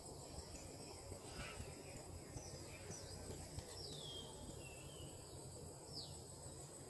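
Faint insect chorus trilling steadily at a high pitch. Over it, a bird gives short whistled calls that fall in pitch, about half a dozen of them, one drawn out a little longer about halfway through.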